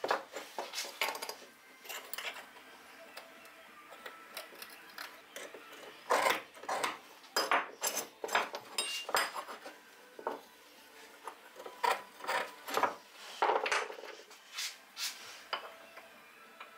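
A flat steel bar and a steel square handled on a wooden workbench: scattered clicks and knocks as metal is set down and shifted, with a few short scrapes as lines are scratched onto the bar.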